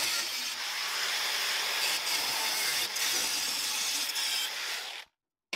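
Angle grinder with a thin cutting disc slicing through flat sheet steel, a steady grinding noise that cuts off about five seconds in.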